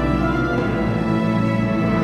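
Background music: a sustained instrumental soundtrack with held tones.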